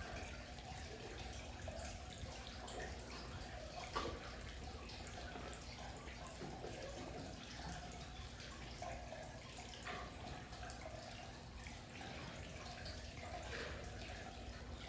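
Amur tiger eating meat: faint wet chewing and licking with scattered small clicks and one sharper click about four seconds in.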